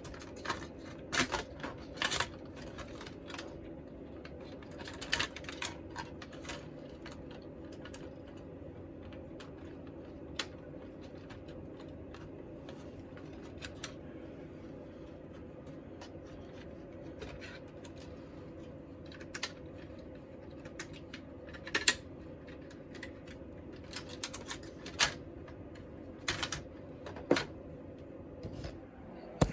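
Scattered light clicks and taps, some in quick little clusters, over a steady hum.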